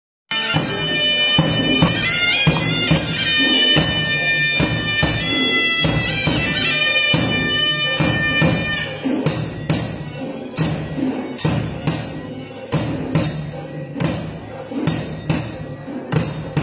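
Sri Lankan perahera drums beating a steady rhythm under a reedy, wavering shawm melody (the horanewa). The shawm stops about halfway through and the drumming carries on alone.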